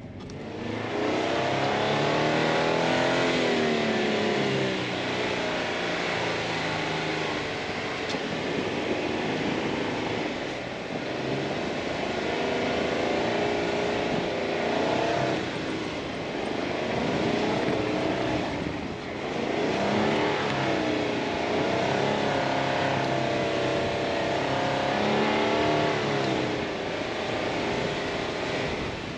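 A Jeep Wrangler JK's V6 engine working hard under throttle, its revs rising and falling in several swells as the Jeep pushes uphill through deep snow, over a steady hiss of the tyres churning snow.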